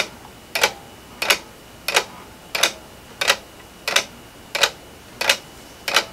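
3D-printed plastic Swiss lever escapement ticking steadily, about three ticks every two seconds, each tick a quick double click. It is beating close to its 666 ms target period while its hairspring is being adjusted to regulate the rate.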